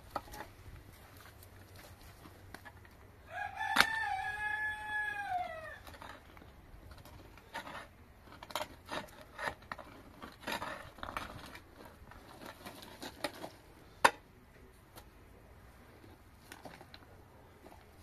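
A rooster crows once, a long call that holds its pitch and then falls away at the end. Around it come irregular thuds and scrapes of a hoe chopping into wet earth, with a sharp knock late on.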